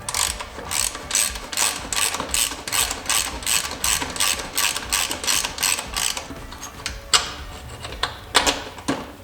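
Hand ratchet wrench clicking in quick, even strokes, about four a second, while a bolt is worked loose. It stops about six seconds in, gives one sharp click a second later, then a few more strokes near the end.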